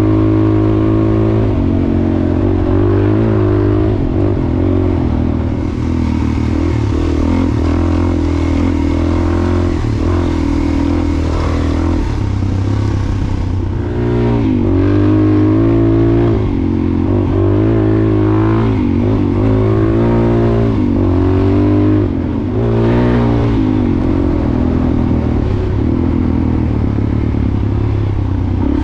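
Dual-sport motorcycle engine running on the move along a dirt road, steady at first, then rising and falling in pitch over and over as the throttle is worked about halfway through.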